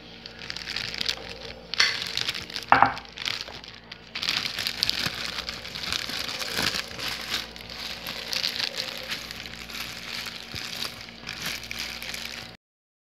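Thin plastic bag full of soft dough batter crinkling and rustling as it is handled, with louder crackles about two and three seconds in. It cuts off suddenly near the end.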